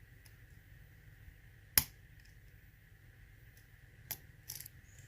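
Clicks from a challenge lock being picked by hand with pick and tension tool: one sharp, loud click about two seconds in, then a fainter click and a short rustle a little after four seconds.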